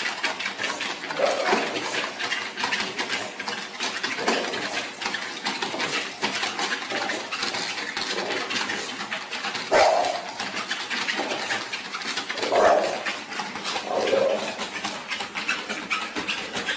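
A bulldog scratching and pawing at a treadmill belt: a fast, uneven run of claw scratches and taps. Five short vocal sounds from the dog are spread through it.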